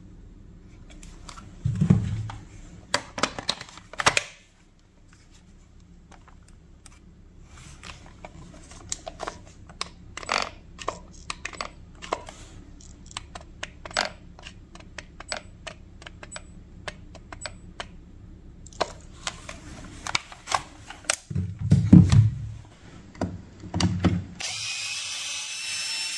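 Many sharp clicks and clacks of a tool and its parts being handled, with a couple of low thumps. Near the end a steady hiss with a high whine sets in.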